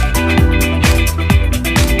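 Background music: an electronic dance track with a steady kick-drum beat, about two beats a second, over a bass line.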